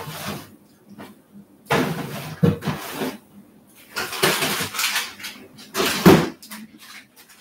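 Dishes and cutlery clattering in several irregular bursts of handling noise, the loudest about two, four and six seconds in.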